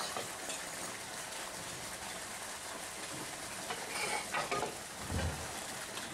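Steady splashing rush of water discharging from a newly installed submersible pump's outlet pipe, flushing out the first muddy water from the new bore. A short low thud comes about five seconds in.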